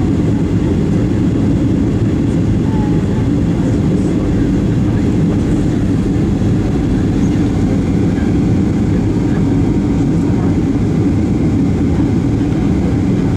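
Steady cabin noise of a jet airliner descending on approach, heard inside the cabin at a window seat over the wing. The jet engines and rushing airflow make an even, low-pitched sound that holds the same level throughout.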